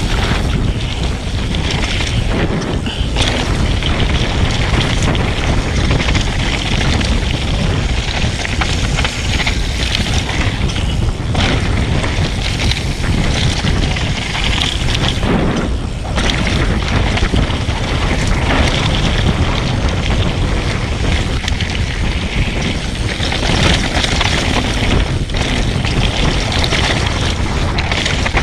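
Mountain bike riding down a dirt trail: tyres rolling over dirt and rock with a steady rattle, and wind noise on the microphone.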